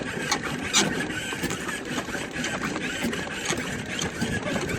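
Claw machine crane mechanism running: a steady mechanical whir with many small clicks and rattles.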